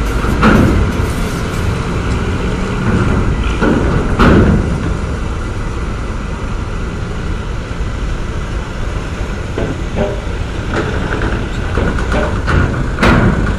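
Large bus's diesel engine running low and steady as it drives up the ferry's steel loading ramp, with loud metallic clanks as the wheels cross the ramp plates, the loudest about half a second and four seconds in.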